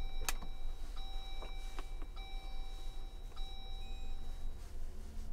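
A Jeep's dashboard warning chime sounds four times in a row, each tone about a second long, and stops about four and a half seconds in. Under it the freshly started engine idles with a steady low rumble, and a sharp click comes near the start.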